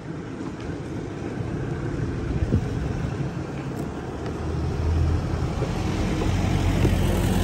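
An engine running, its steady low hum growing louder from about halfway through.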